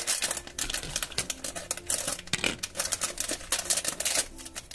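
Crinkling plastic foil blind-bag pouch being worked with the fingers and torn open by hand: a dense run of small crackles.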